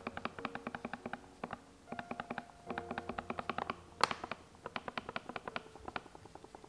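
Background music: a fast, even run of short tapping notes over a melody that steps up and down in pitch, with one sharp accent about four seconds in.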